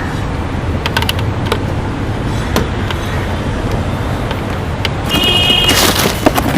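Steady low background rumble, with a few light clicks spread through the first few seconds and a louder rustling hiss about five seconds in.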